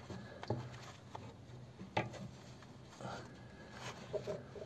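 A few faint, sharp clicks and light scraping of a gloved hand handling a thin metal linkage rod and coil spring while hooking the spring on.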